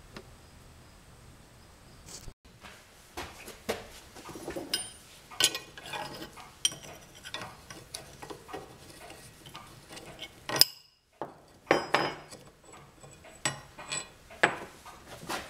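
Scattered metallic clinks and knocks of a wrench working a rusty square-head bolt loose from a steam engine crankshaft's web and the bolt being taken out. One sharp clink about ten seconds in is the loudest.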